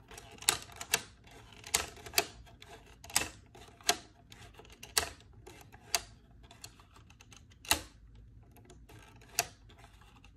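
Hand-worked Lego Technic counter-snapping mechanism clicking and knocking as the rubber-band-loaded toggle lever flips and its plastic beams strike their stops, at irregular intervals about a second or less apart, a few clicks louder than the rest.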